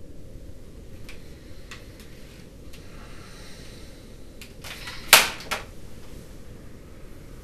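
Corded landline telephone handset set down on its base: one sharp plastic clack about five seconds in, a smaller click just after, with a few faint handling clicks before it.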